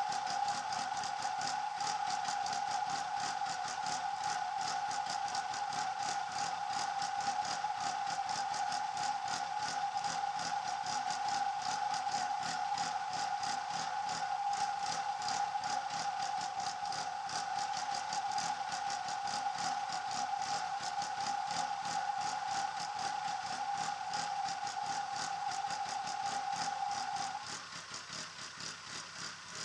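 A steady high whine with a fast, fine ticking running through it, like a small electric motor running, which cuts off suddenly near the end.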